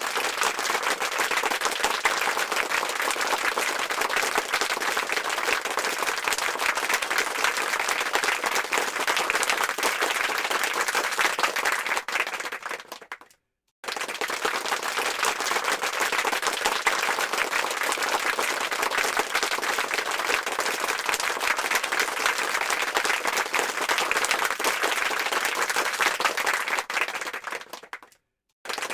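Rousing applause from a large crowd: dense, steady clapping that fades out and breaks off about halfway through, then starts again at full strength and fades out once more near the end.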